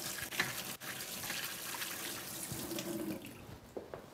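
Kitchen tap running as hands are washed under it, a steady hiss of water that stops near the end.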